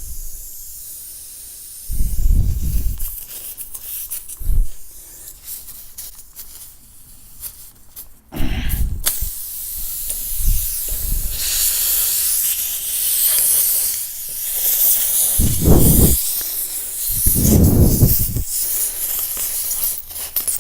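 Air hissing out of a punctured BMW 335i rear tire through the hole where a screw was removed. The hiss is faint at first and becomes loud and steady about eight seconds in, with several dull low thumps scattered through it.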